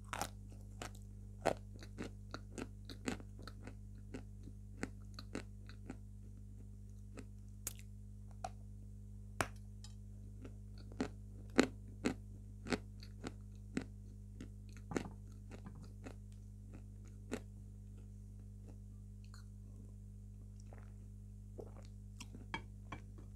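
Close-miked crunching and chewing of a block of white chalk, in irregular sharp crunches that are densest in the first half and thin out over the last several seconds. A faint steady low hum runs underneath.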